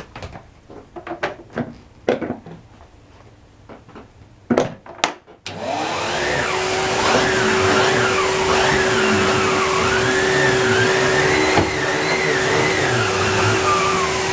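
Clicks and knocks, then about five seconds in a Numatic Henry cylinder vacuum cleaner switches on and runs steadily, with a held hum and a higher tone that wavers up and down.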